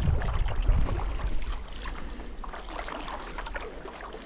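Paddle strokes splashing in lake water beside a stand-up paddleboard. Wind rumbles on the microphone for the first couple of seconds, then dies away.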